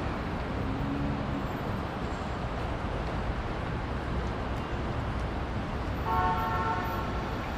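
Steady city traffic noise, an even rumble and hiss. A brief low tone sounds about a second in, and a vehicle horn toots for about a second near the end.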